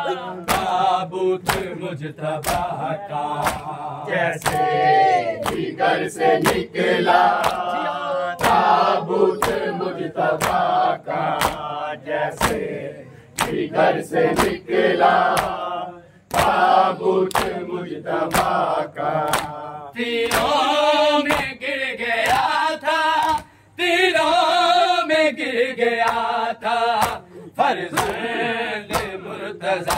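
Group of men chanting a noha in chorus, with sharp rhythmic slaps of matam (chest-beating) keeping a steady beat under the singing.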